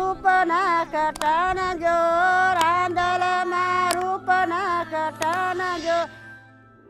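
Background music: a solo voice singing a melody in long held notes with ornamented bends, over a low steady drone and a few sharp percussion taps. The music stops about six seconds in.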